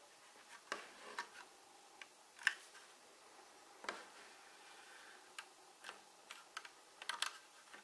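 Plastic building-brick toy vehicle being handled: light, irregular clicks of its plastic parts. The loudest comes about two and a half seconds in, with a quick cluster of clicks near the end.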